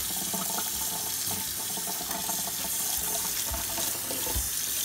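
Kitchen faucet running in a steady stream, splashing onto a spaghetti squash and into the sink as the squash is washed, with a few soft knocks in the second half.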